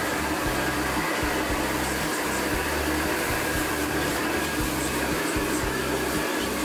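Restaurant wok burner at full flame, a loud steady rushing noise, while a cook stir-fries and tosses food in the wok.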